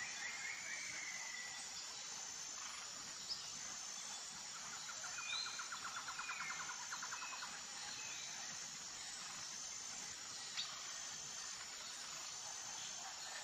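Natural outdoor ambience of insects and birds: a steady insect hiss, short bird chirps here and there, and a rapid buzzing trill at the start and again about five seconds in for two seconds. Two sharp ticks stand out, a few seconds in and near the end.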